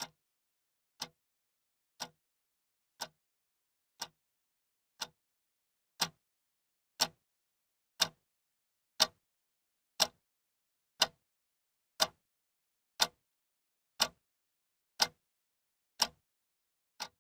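A clock ticking once a second, each tick a sharp click with silence between; the ticks get louder about six seconds in.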